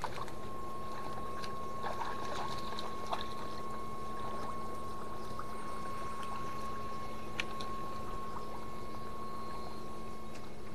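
Electrofishing rig's power unit running, a steady high-pitched whine with a low hum beneath it over a steady hiss, with a few faint clicks.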